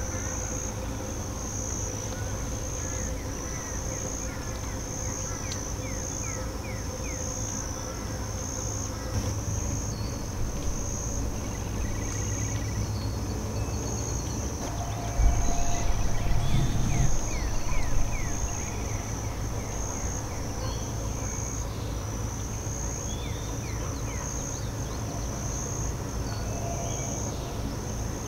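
Summer insect chorus: a steady high chirring that pulses about once a second, with short high chirps now and then. Under it is a low rumble that swells for a few seconds around the middle.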